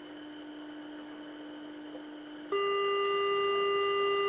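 Smartphone signal-generator app playing a steady single test tone through the phone's speaker. About two and a half seconds in, the tone jumps up to a higher pitch and gets much louder.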